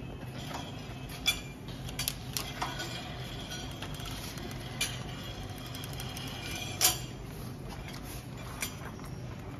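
Plastic packaging film being handled and threaded over the metal rollers of a bag packing machine: scattered sharp clicks and light metallic clinks over a steady machine hum. The loudest click comes about seven seconds in.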